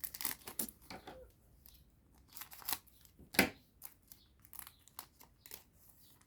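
A foil trading-card promo pack being torn open and its wrapper crinkled by hand: irregular sharp crackles, the loudest about three and a half seconds in.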